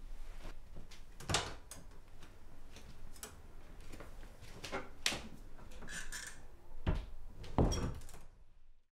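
Soft footsteps and rustling, then a door handle clicking and an interior door being shut, with two dull thuds near the end.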